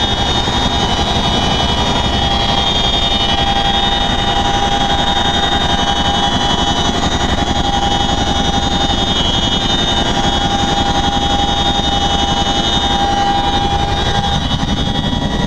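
Boeing CH-47 Chinook twin-rotor helicopter in flight heard from inside its cargo hold with the rear ramp open: a loud, steady din of engines and rotors with constant high whines over it.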